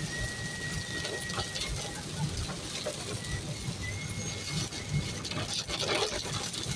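Inside a moving car on a wet road: steady road and engine noise, with rain on the windscreen, windscreen wipers and a few light clicks. A thin, steady high whistle runs through most of it.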